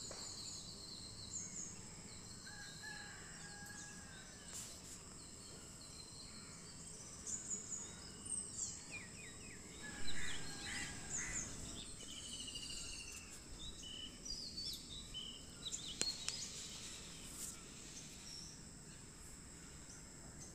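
Background birds chirping and calling, many short high chirps and trills, over a steady high-pitched hiss. A sharp knock about halfway through, with a lighter one later.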